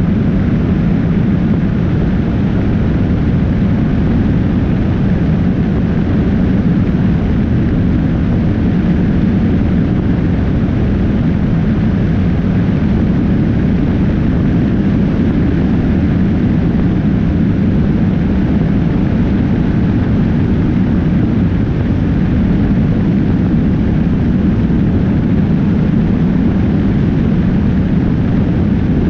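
Motorcycle riding at highway speed, heard as a steady rush of wind and road noise on a GoPro mounted low beside the front wheel, with the engine's running buried in the low rumble.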